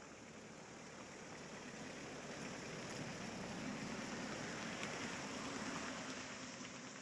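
A car driving past on a concrete road: a hiss of tyre and engine noise swells over a few seconds, peaks about two-thirds of the way through, then fades away.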